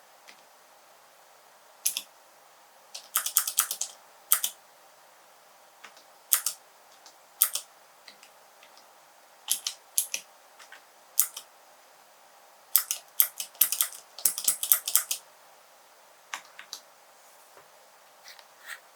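Keys of a small four-key mechanical keyboard with Cherry and Gateron switches being pressed. Sharp clicks come in irregular flurries of quick presses, about 3 to 4.5 s in and again about 13 to 15 s in, with single presses and short pauses between them.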